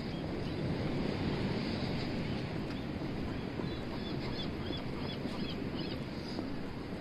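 Steady low rush of sea wind and surf, with wind on the microphone. From about four to six seconds in, a quick run of about seven short high chirps.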